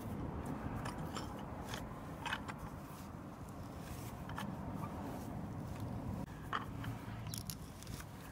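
Hand auger drill bit, turned by a wooden stick handle, twisting into a log: the wood crunches and scrapes as the bit cuts, with scattered sharp cracks.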